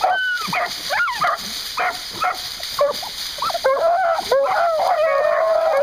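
Several beagles giving short, overlapping yips and yelps, then about two-thirds of the way through one long, steady bay sets in and holds.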